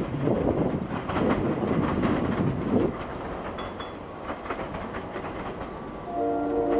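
SEPTA Regional Rail electric commuter train rumbling and clacking over the rails as it pulls away, the rumble falling off about three seconds in. Near the end a train horn starts sounding a steady chord of several notes.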